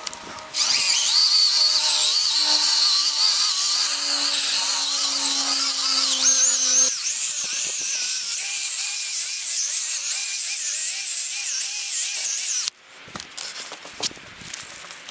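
Electric drill spinning a polishing pad against a plastic headlight lens, buffing in plastic polish. The high motor whine wavers in pitch with the load, starting about half a second in and stopping abruptly near the end.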